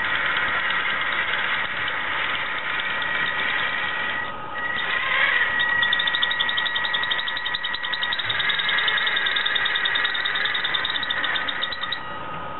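Losi Comp Crawler's drivetrain running with a steady high-pitched whine that dips briefly about four seconds in, then carries a fast ticking rattle from about six seconds on. This is the annoying noise the owner has traced with a stethoscope.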